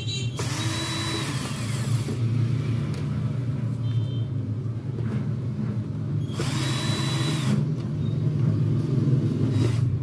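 Cordless drill-driver running in two short bursts, about half a second in and again about six and a half seconds in, each with a motor whine that rises, holds and falls as it backs screws out of a TV's plastic back frame. A steady low hum runs underneath.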